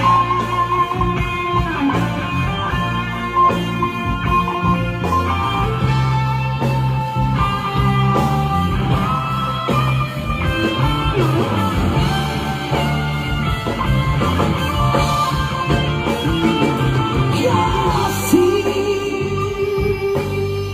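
Band music: a guitar-led instrumental break in a Malay pop song, a pitched melody over steady bass and rhythm, with no sung words.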